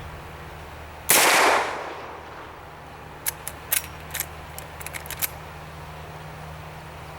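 One loud shot from a Marlin 1894S lever-action rifle in .44 Magnum about a second in, with a ringing tail that fades over about a second. A couple of seconds later comes a quick run of about ten sharp metallic clicks as the lever is worked to eject the empty case and chamber the next round.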